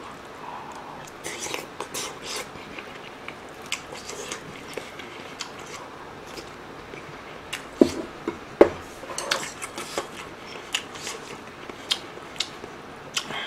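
Spoon and metal chopsticks clinking against a rice bowl and a metal stew pot while a mouthful is eaten, a string of sharp clicks with two louder clanks a little past halfway.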